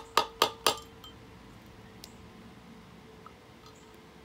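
Hammer striking a bolt used as a drift in the hub of a steel brake drum: four quick metal-on-metal blows in the first second, with the drum ringing on for about a second after the last one.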